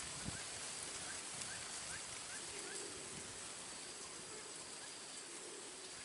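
Outdoor ambience: a steady high insect drone, with a quick series of short rising bird chirps in the first half and a single soft low thump near the start.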